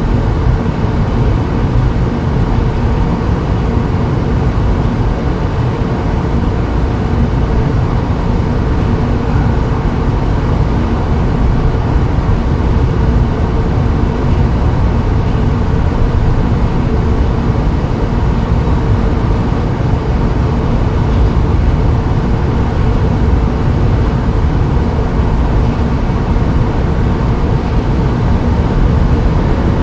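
Steady, loud low rumble of a vehicle, unbroken and unchanging, with a faint steady hum in it.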